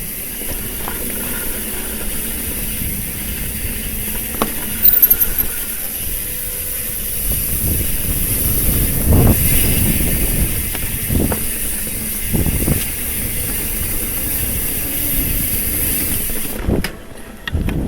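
Trek Fuel EX full-suspension mountain bike ridden over a dirt trail: a steady rushing noise of tyres and air, with low rumble and several sharp knocks and rattles as it goes over bumps.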